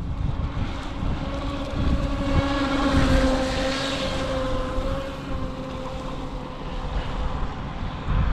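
UDIRC Arrow RC speedboat's electric motor whining at speed as the boat passes close by, loudest about three seconds in and fading as it runs off. Wind rumbles on the microphone underneath.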